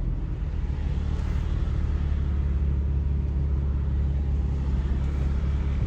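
Infiniti VQ35HR V6 breathing through a freshly installed Manzo stainless catback exhaust, running at a steady low drone with no change in pitch.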